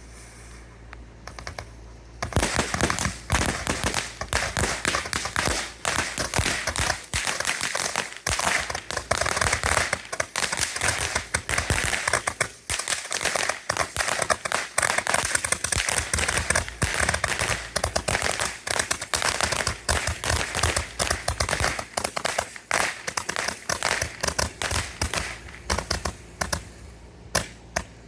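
A 'minigun' super Roman candle, rated around 200 shots, firing a rapid, continuous stream of popping shots. It starts about two seconds in, keeps going for about 25 seconds, and stops just before the end.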